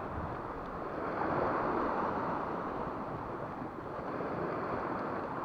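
Small sea waves washing and foaming against shoreline rocks, with wind on the microphone; the wash swells a second or so in.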